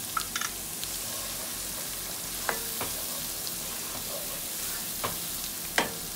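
Onions, ginger-garlic paste and ground spices sizzling steadily in hot oil while a wooden spatula stirs them in a nonstick pot, with a few sharp knocks of the spatula against the pot; the loudest knock comes near the end as the spatula is laid across the pot.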